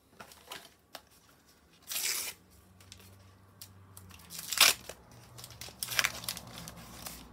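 A Panini sticker packet being torn open by hand: several sharp rips of the wrapper with crinkling between them. The loudest rip comes about halfway through.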